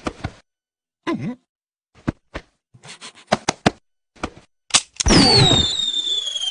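Cartoon sound effects: scattered knocks and clicks with a short grunt about a second in, then a quick run of clicking and rattling as the bear handles a ski binding. About five seconds in, a loud whoosh with a falling whistle as the bear is flung away.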